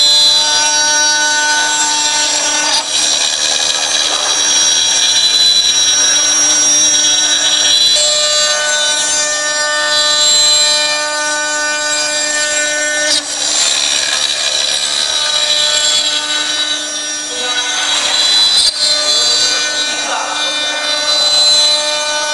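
Spindle of a 4-axis CNC router running, its cutter carving a wooden workpiece turning on the rotary axis: a steady whine of several tones over cutting hiss, the tones changing every few seconds as the cut moves along.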